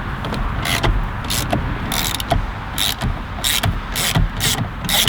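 Ratchet driver clicking as a T30 security Torx bolt is unwound, in quick irregular clicks about two or three a second starting a little under a second in.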